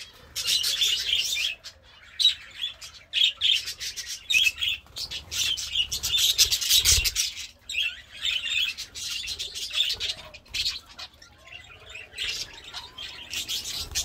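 A mixed aviary flock of budgerigars and zebra finches chirping and chattering, many short high chirps following one another almost without pause, with a brief lull about a second and a half in.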